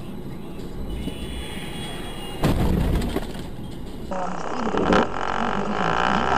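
Steady road and engine noise of a moving car, then a sudden loud burst of noise about two and a half seconds in that lasts about a second. After an abrupt change in the sound, voices are heard.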